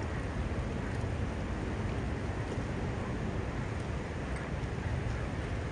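Steady rushing of water in the tailwater below a hydroelectric dam, with a low rumble underneath and no letup.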